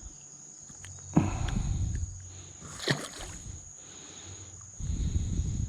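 Creek water sloshing and splashing in a few irregular bursts, about a second in, near three seconds and again toward the end. Under it runs a steady high-pitched insect drone.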